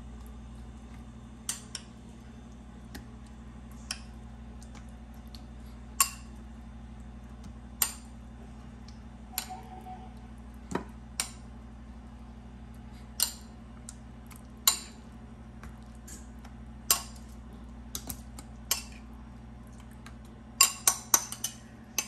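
Metal spoon clinking against a ceramic bowl and glass baking dish while a topping is spooned out, single clinks every second or two, then a quick run of clinks near the end. A steady low hum runs underneath.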